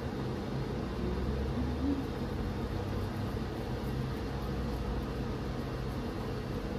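Steady low mechanical hum with a few faint steady tones in it, unbroken throughout.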